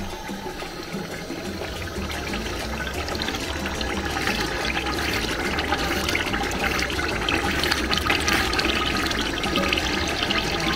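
Liquid splashing and pouring, growing louder from about two seconds in.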